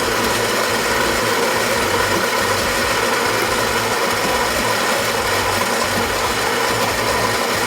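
Built-in coffee grinder of a Philips 3200 LatteGo super-automatic espresso machine grinding beans for a cappuccino: a steady, loud mechanical grinding noise.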